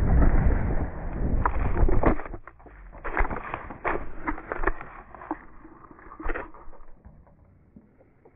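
Bicycle rolling fast over a sandy dirt trail with wind rumble on the microphone, then a crash about two seconds in: the rolling noise stops abruptly. A scattered run of knocks and scuffs follows and dies away to quiet near the end.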